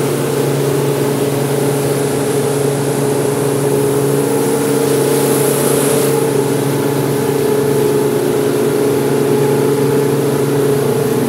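Motor cruiser's engines running steadily under way, a constant hum with a rush of wind and water over it.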